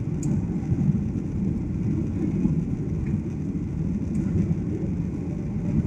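Cabin noise inside a Ryanair Boeing 737 in its climb after takeoff: the steady low rumble of the jet engines and the air rushing past the fuselage, heard from a window seat. A faint click sounds about a quarter of a second in.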